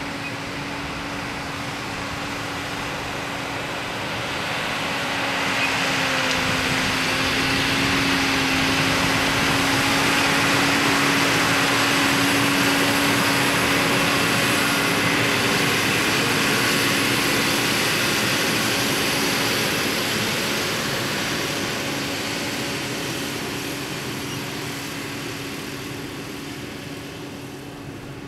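Bulk fertilizer spreader truck driving past over turf, its engine and spreader running with a steady hum over a hiss. It grows louder to a peak about halfway through as it passes, then fades as it moves away.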